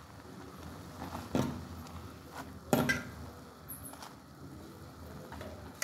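A metal fork clinking against a steel cooking pot while stirring instant noodles in boiling water: one clink about a second and a half in, then a louder pair close together near the middle.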